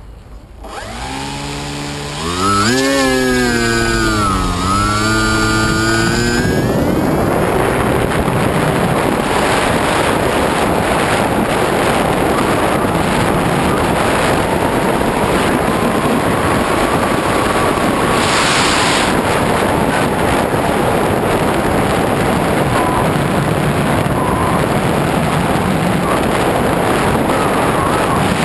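Brushless electric motor and propeller of a Skywalker V2 foam plane. For the first few seconds it spins up, its whine rising and falling with the throttle. From about seven seconds in, steady rushing wind noise and propeller noise, as heard from a camera on the plane's nose in flight.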